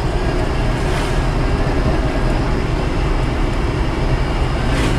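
Mitsubishi Kuda 1600 cc petrol engine and road noise heard from inside the cabin while cruising at about 50 km/h, a steady low drone with a rush of tyre and wind noise. A brief whoosh, like a passing vehicle, near the end.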